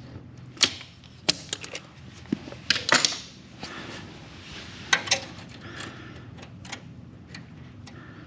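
Irregular sharp clicks and light knocks from hand work on a mower deck, about a dozen spread unevenly, with a short scraping rustle about three seconds in.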